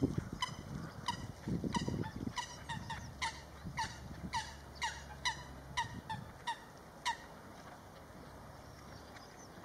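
Water bird calling repeatedly: a series of short calls, about two a second, that stop about seven seconds in. A low rumble runs under the first two seconds.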